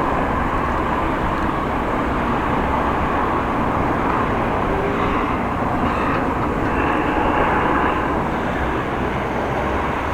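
Steady rush of wind and rolling road noise while riding a bicycle on the road.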